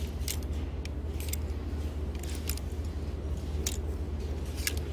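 Plastic clothes hangers clicking and scraping against a metal clothing rack as garments are slid aside by hand: a handful of sharp clicks at irregular intervals, over a steady low hum.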